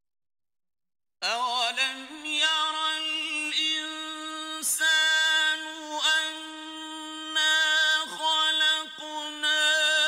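About a second of silence, then a solo voice begins chanting Quranic recitation in long, held, ornamented notes, with short breaks between phrases.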